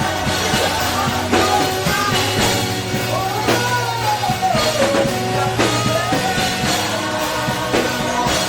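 A live gospel worship band playing, with a drum kit keeping time under sustained chords and a singer's wordless line rising and falling in the middle.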